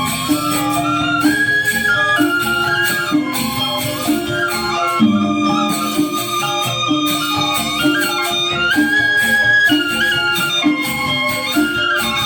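Balinese gamelan angklung ensemble playing a classical four-tone piece: struck bronze metallophones and reong gong-chimes in quick interlocking strokes over a steady lower melody.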